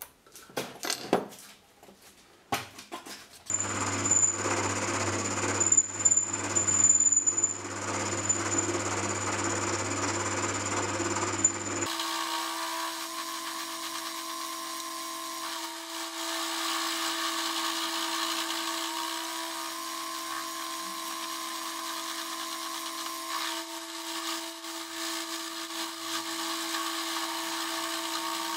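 A few handling clicks, then a mini metal lathe running as it turns an aluminium bar, a steady machine sound with a thin high whine. About twelve seconds in it changes abruptly to a different steady hum with cutting noise over it as the tool takes a light taper cut.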